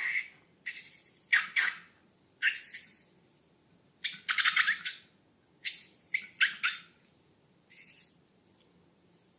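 Slime being squeezed and worked by hand: a run of short, wet, crackling squishes with short gaps between them, the longest about halfway through and a fainter one near the end.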